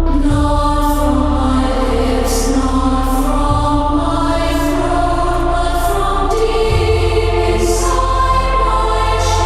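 Music: choir-like voices singing long held notes that shift in pitch every second or two, over a steady low drone.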